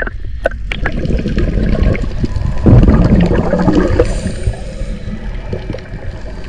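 Underwater bubbling and gurgling from a scuba diver's regulator as he breathes out, with a louder rush of bubbles partway through that then eases off.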